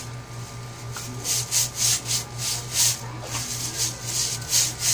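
Hands scrubbing a wet, soapy dog's coat: a series of quick rubbing strokes, about two to three a second, over a steady low hum.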